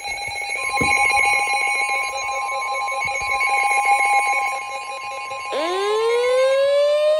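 NOAA Weather Radio warning alarm: a single long, steady tone starts about half a second in, over a harsh, rapidly pulsing electronic alarm buzz. From about five and a half seconds a siren-like sweep rises in pitch.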